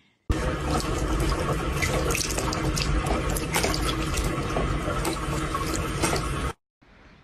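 Water running from a bathroom sink tap and splashing into the basin, a steady rush that starts suddenly and cuts off abruptly near the end.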